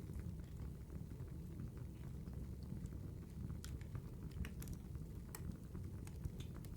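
Campfire crackling: a steady low rumble of burning wood with irregular sharp pops and snaps.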